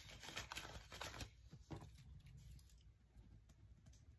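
Faint rustling of paper banknotes and binder pages being handled, with a few soft crinkles mostly in the first second and a half.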